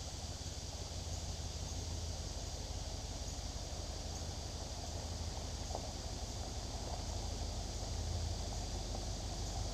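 Ford Econoline camper van driving slowly toward the listener over a dirt road, a low engine rumble growing slightly louder, over a steady high drone of insects.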